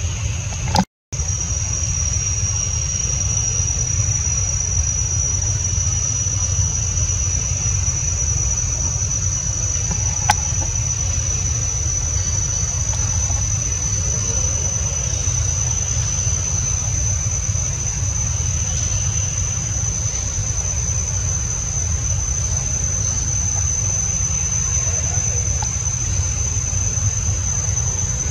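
A steady high-pitched insect drone, unbroken throughout, over a constant low rumble. The sound cuts out briefly about a second in.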